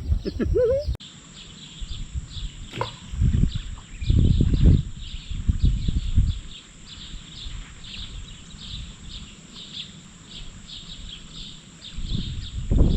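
A steady chorus of short, high chirps repeating about three times a second, from creatures calling around the creek. Low rumbling comes over it about three to five seconds in and again near the end.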